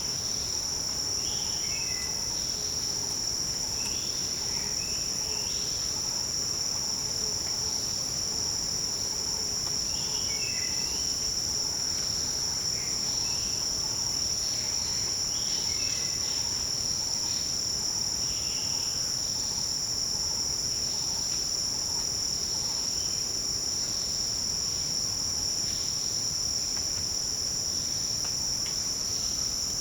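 Tropical forest insect chorus: a steady, unbroken high-pitched drone, with scattered faint short chirps below it.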